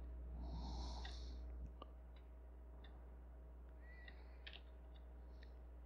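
Quiet room tone with a steady low hum. A soft breath comes about half a second in, followed by a few faint, scattered clicks from working at a computer.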